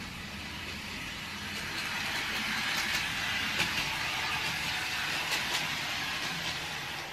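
Lionel Trackmobile O-gauge model locomotive running at full speed on three-rail track, with no sound system fitted: its small electric motor and gears whir and its wheels roll, with a few light clicks. The whir grows louder over the first few seconds and eases off near the end.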